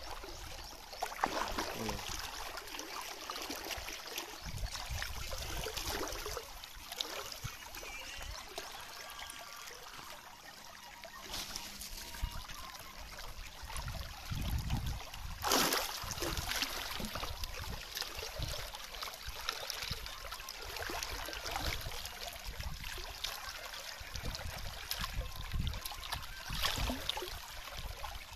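River water trickling and splashing unevenly, with a louder splash about halfway through.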